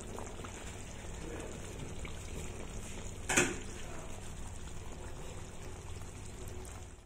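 Thick sambal sauce simmering and bubbling around fried fish in a wok, a steady wet bubbling, with one sharp click or knock about three seconds in.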